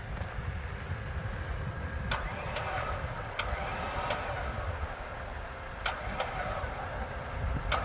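Badlands Apex 12,000 lb electric winch hauling a car on its line: a steady low rumble, with several sharp clicks at irregular intervals.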